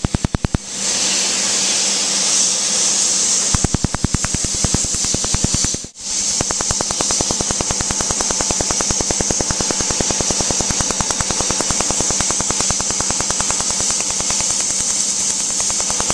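Q-switched tattoo-removal laser firing in a rapid, even train of sharp snaps as its pulses strike the tattooed skin, over the steady hiss of a cold-air cooling hose blowing on the spot. Both stop briefly about six seconds in, then start again.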